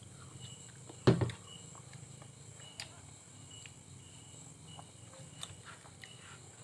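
Faint, steady high chirring of night insects, with one sharp knock about a second in.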